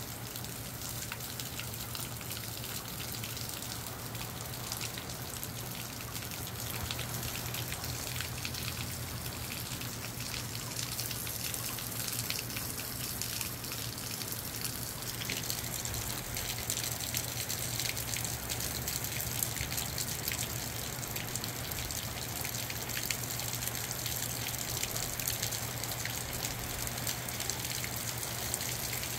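Moderate rain pattering steadily in a dense spray of drops, with water running and splashing, growing a little louder after about ten seconds. A steady low hum runs underneath.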